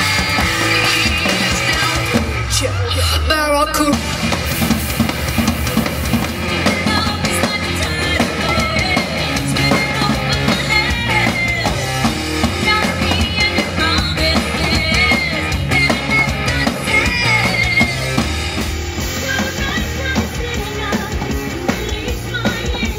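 Live stage-show music driven by a drummer on a drum kit, playing continuously at a loud level.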